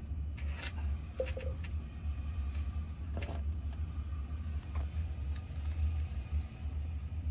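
Hand tools working on a car's rear differential cover: a few short metallic scrapes and clicks spread through, over a steady low rumble.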